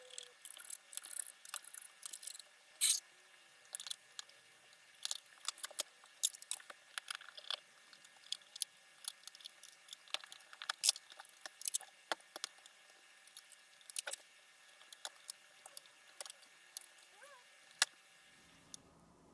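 Irregular small clicks, taps and short scrapes of hands working on metal and plastic computer parts, at an uneven pace with a few sharper clicks.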